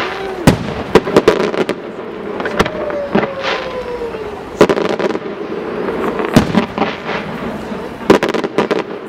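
Aerial firework shells bursting with repeated sharp bangs at irregular intervals, some in quick clusters, over a steady background rumble. A whistling tone falls slowly in pitch about three seconds in.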